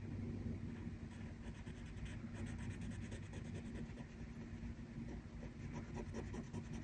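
Black felt-tip marker rubbing on textured paper as a letter is coloured in, with many quick back-and-forth strokes, faint, over a low steady hum.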